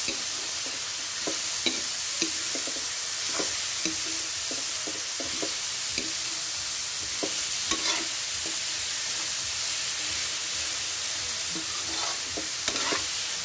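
Chopped banana blossom, garlic, onion and pork sizzling as they are sautéed in oil in a metal wok. A metal spatula scrapes and clinks against the pan in irregular strokes as the mixture is stirred.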